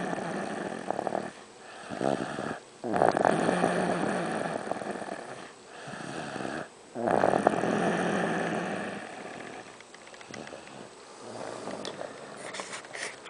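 A young boy snoring in his sleep: long snores a few seconds apart, softer after about nine seconds in.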